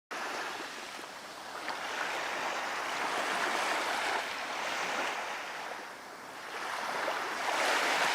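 Sea waves rushing, swelling and easing twice.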